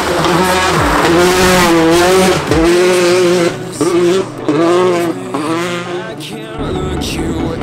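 Rally car engine at high revs, its pitch rising and falling again and again as the driver shifts and lifts through the stage. It fades off near the end.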